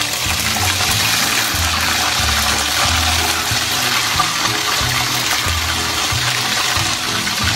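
Breaded pork chops sizzling steadily in hot vegetable oil in a wok, with background music underneath.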